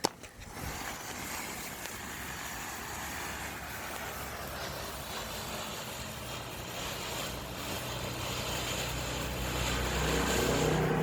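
Small handheld fountain firework spraying sparks: a sharp pop, then a steady hiss that grows a little louder near the end.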